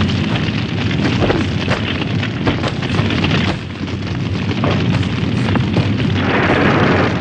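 Sound effect of a house fire: a steady low rumble of flames with constant crackling and pops. A brighter hiss swells about six seconds in.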